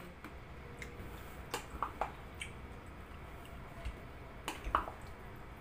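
Creamy macaroni salad being stirred with a silicone spatula in a stainless steel pot: soft squishing with a few short clicks as the spatula knocks the pot.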